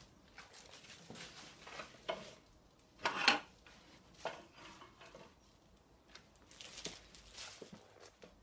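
Scattered clinks, knocks and rustles from the steel hook and shackle of a crane scale being handled in its foam packing. The loudest noise comes a little over three seconds in.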